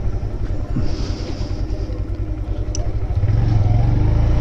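Motorcycle on the move, heard through a helmet-mounted microphone: a low, fluttering rumble of engine and wind buffeting that grows louder about three seconds in.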